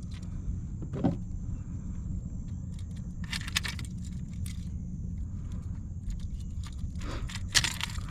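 Scattered clicks and rattles of fishing gear being handled aboard a kayak, clustered about a second in, in the middle and near the end, over a steady low rumble.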